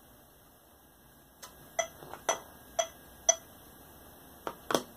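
Electronic metronome ticking, four even ticks about half a second apart, followed near the end by two sharper clicks of a cable jack being handled.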